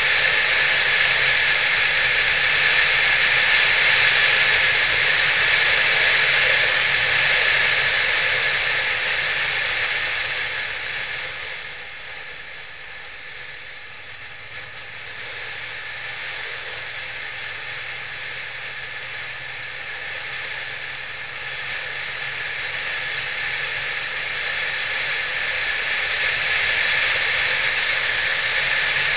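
Wind rushing over the microphone of a camera on a moving motorcycle, with the bike's engine faintly beneath. The rush dies down from about ten seconds in as the bike slows, then builds again from about twenty seconds on as it picks up speed.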